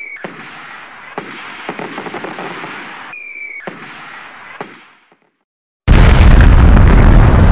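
Fireworks: a short whistle, then crackling bursts with sharp pops, and a second whistle and crackling burst that fades out. Then, about six seconds in, a very loud explosion with a deep rumble, the loudest sound here.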